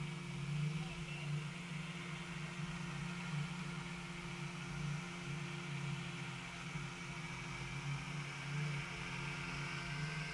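A steady low mechanical hum, engine-like, with a faint hiss above it and no sudden sounds.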